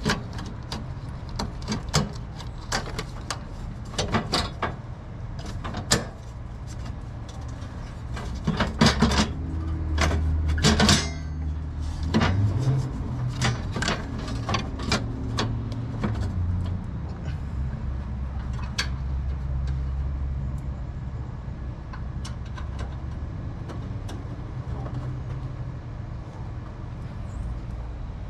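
Hand tools and metal parts clinking and knocking, many in the first ten seconds and a few scattered later, over a steady low hum that grows louder in the middle.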